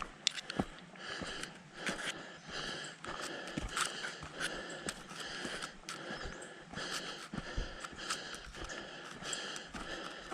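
A hiker breathing hard while walking, each breath a hissing rush, with footsteps on a dirt trail thudding about once a second.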